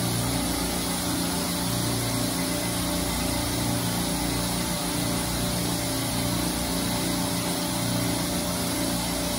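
Steady drone of running machinery: a constant low hum under an even hiss, with no break or change.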